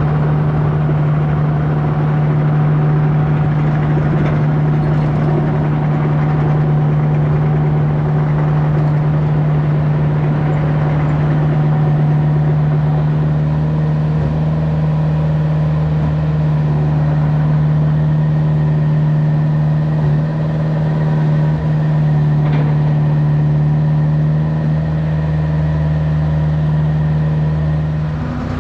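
Kubota compact excavator's diesel engine running with a steady hum, its hydraulics working as the machine swings and moves its boom and grapple.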